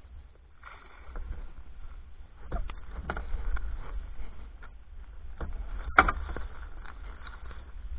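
Kayak on moving water: a steady low rumble with a faint wash of noise, broken by several sharp knocks and clicks, the loudest about six seconds in.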